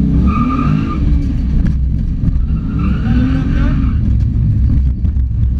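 BMW M3 E92's twin-turbocharged V8 heard from inside the stripped, roll-caged cabin, revs rising and falling as the car is driven hard through a stage. Tyres squeal twice, for about a second near the start and again about three seconds in.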